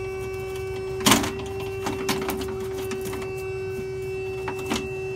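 Metal window regulator being worked by hand out of a door's inner panel: a sharp metal clank about a second in, then small knocks and rattles, over a steady hum.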